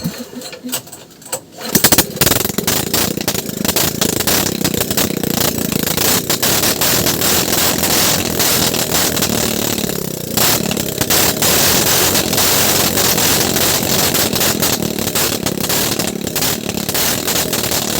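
Small boat engine started with the choke on: it catches a couple of seconds in and then runs steadily and loudly, with a brief dip in level about halfway through.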